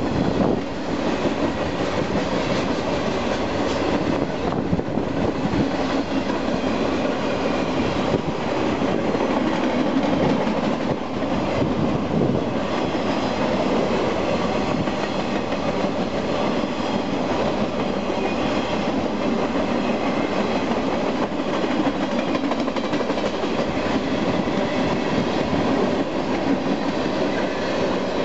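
Freight train cars rolling past, a steady, unbroken noise of steel wheels running on the rails.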